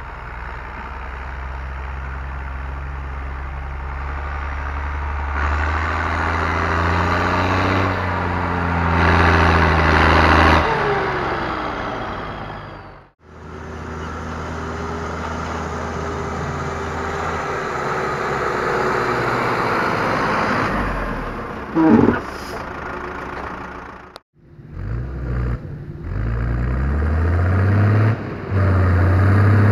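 Diesel tractor engines working and revving, heard in three takes with abrupt cuts between them. In the last take a tractor pulling a loaded silage trailer accelerates hard, its engine pitch climbing in steps.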